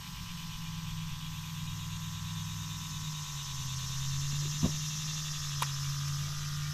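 A steady low engine drone that drops slightly in pitch about three seconds in, over a high hiss, with two short sharp clicks just past the middle.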